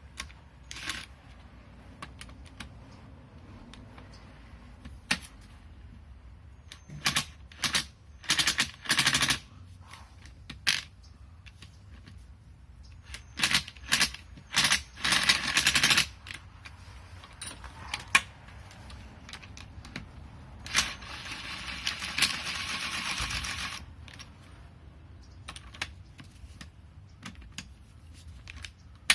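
A tool spinning out already-loosened bolts on a VW 1.8T engine, in a string of short, rapid rattling bursts. The longest burst lasts about two and a half seconds, in the second half.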